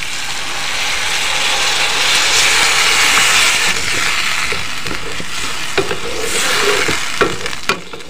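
Water poured into a hot pan of fried spiny gourd sizzles with a loud hiss that swells over the first three seconds. From about the middle on, a slotted spatula stirs the pieces, clicking and scraping against the non-stick pan.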